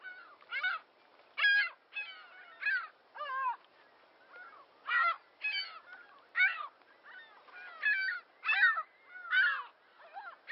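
Several birds calling: short, harsh calls about a quarter-second long, one or two a second at irregular intervals, some loud and some fainter.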